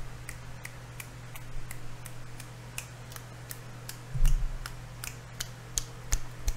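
Steady hum of an electric fan with a quick, even series of small clicks, about three a second, that grow louder near the end. There is one louder low thump about four seconds in.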